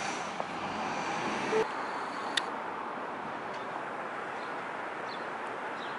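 Steady road noise of a car driving, with a brief click about two and a half seconds in.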